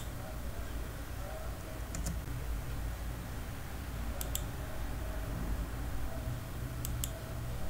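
A few computer mouse button clicks, some in quick pairs like double-clicks, over a steady low hum.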